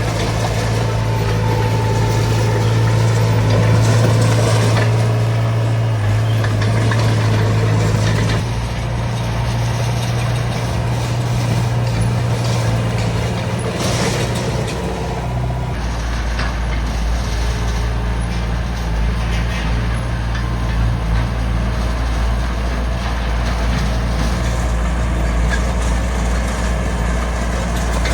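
Diesel engine of a small bulldozer running steadily under working load. Its low note shifts about eight seconds in and again around sixteen seconds, as the load on the engine changes.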